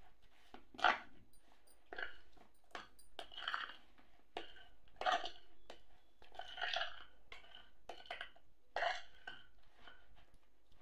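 Wet squelching and slapping of raw chicken drumsticks being rubbed and turned by hand in a wet marinade in a plastic bowl, coming in irregular bursts.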